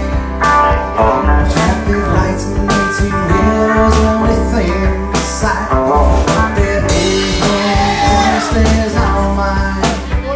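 Live music: a hollow-body archtop electric guitar being strummed and picked through an amplifier, with a man singing over it.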